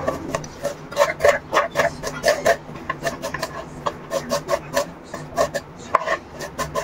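Kitchen knife chopping sliced onion, cucumber and boiled potato on a wooden cutting board: quick, irregular strikes, about two to four a second, with hands scraping the pieces together on the board.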